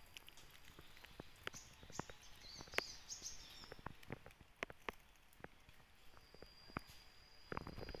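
Faint forest ambience: scattered sharp clicks and crackles, a short burst of high chirping about three seconds in, and an insect's steady high buzz that starts about six seconds in.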